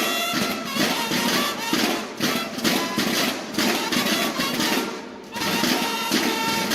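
Mexican banda de guerra playing a march: drums beating a steady rhythm under sustained bugle tones, with a brief dip in the sound about five seconds in.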